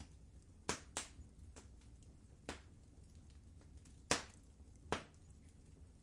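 Wood fire crackling in a fireplace: five sharp pops, the loudest about four seconds in, over a faint steady low rumble of the burning fire.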